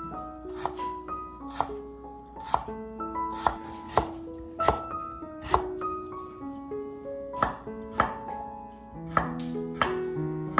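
Knife chopping on a cutting board, a dozen or so sharp strokes at an uneven pace of about one a second, over background instrumental music with a slow melody of held notes.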